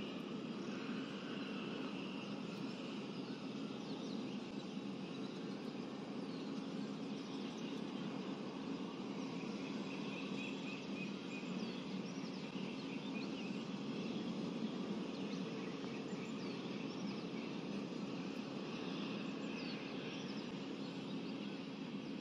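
Outdoor background: a steady low hum with faint, scattered bird chirps over it.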